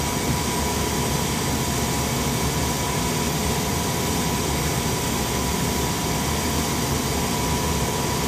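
Steady whir of equipment running in a jet's cockpit during a pitot-static test, an even hiss with a few faint, high, steady tones.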